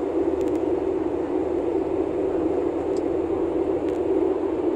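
Steady engine and airflow noise of an Airbus A320 airliner, heard from inside the passenger cabin during the descent to land: a constant, even hum.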